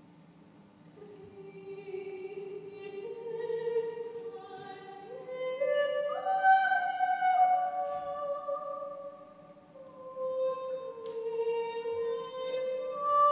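A voice singing a slow melody of long held notes, growing louder over the first few seconds, climbing step by step to its highest notes about midway and then falling back. A faint steady low hum runs underneath.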